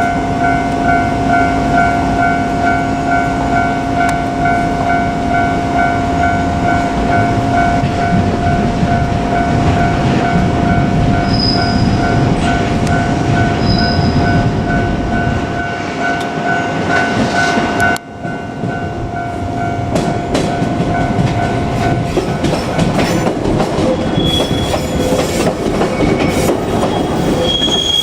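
Japanese level-crossing warning bell ringing in a steady repeating pattern while a train runs over the crossing, its wheels clattering over the rail joints with some squealing. The bell stops about three-quarters of the way through, and the train noise carries on.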